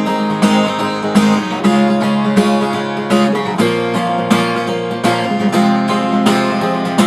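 Acoustic guitar strummed fast in a repeating rhythmic strumming pattern, with the right hand in a gallop-style position and the chords changing every couple of seconds.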